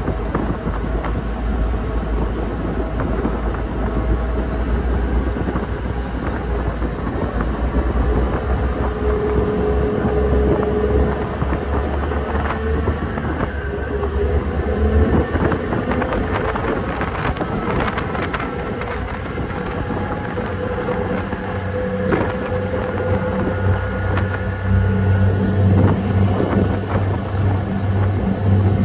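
Passenger ferry underway: its engines drone steadily beneath wind on the microphone and water rushing past the hull. About two-thirds of the way through, a steady low engine hum comes up and grows louder toward the end.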